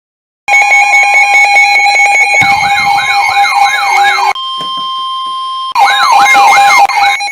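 Electronic alarm and siren tones: first a rapid pulsing beep, then a fast yelping siren that sweeps up about three times a second. Near the middle the yelp breaks off for a steady tone lasting about a second and a half, then returns.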